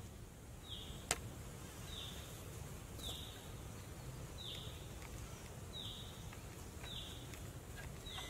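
A bird repeats a short, high, falling note about once a second. About a second in comes a single sharp knock, the loudest sound, with a few faint taps later on.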